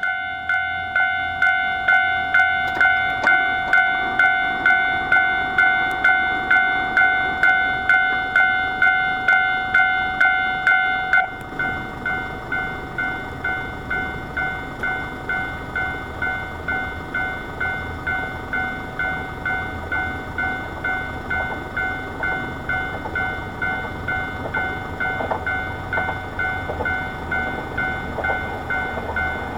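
A Japanese level crossing's electronic warning bell ringing steadily, about two clangs a second. About eleven seconds in it suddenly becomes quieter and duller and keeps ringing, while a train's low rumble grows beneath it near the end.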